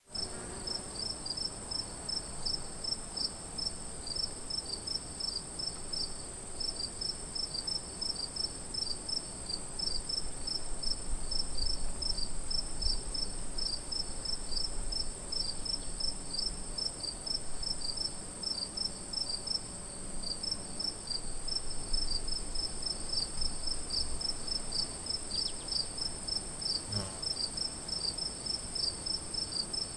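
Crickets chirping: a steady high-pitched trill with rapid, evenly repeated chirps over it.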